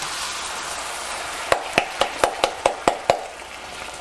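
Canned pinto beans and their liquid pouring into a hot frying pan of sautéed onions, hissing as they hit the oil. About a second and a half in, a quick run of about eight sharp metallic knocks, some five a second, as the last beans are knocked out of the tin can.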